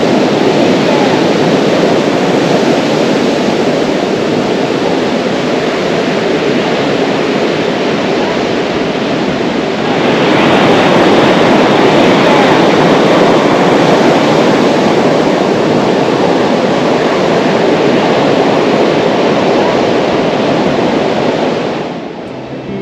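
Steady rushing noise of wind and surf on a beach, growing louder about halfway through and cutting off abruptly near the end.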